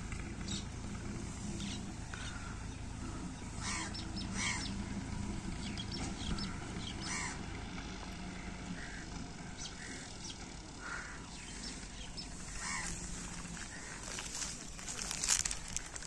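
Distant Massey Ferguson 240 tractor working with its reaper, a low steady engine hum that weakens after about halfway, with short bird calls scattered over it and a brief burst of noise near the end.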